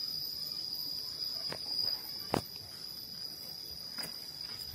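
Insects chirring steadily on one high, unchanging pitch. A few short ticks or knocks sound over it, the sharpest about two seconds in.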